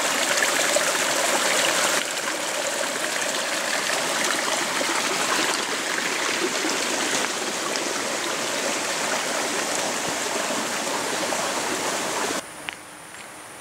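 Small, shallow forest stream running and trickling over pebbles, a steady rush of water. Near the end the water sound cuts off abruptly, leaving a much quieter background.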